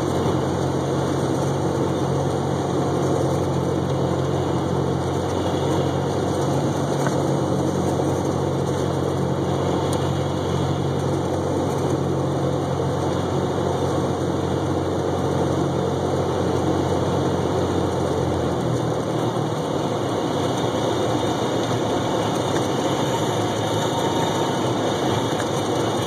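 Cabin noise of a light single-engine propeller plane on final approach and landing: a steady engine and propeller drone under a rush of air noise. About three-quarters of the way through, the low engine hum falls away, leaving mainly the rushing noise.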